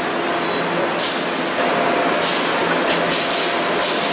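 Factory processing-line machinery running: a steady mechanical hum with faint steady tones, broken by short bursts of hiss roughly once a second, coming closer together near the end.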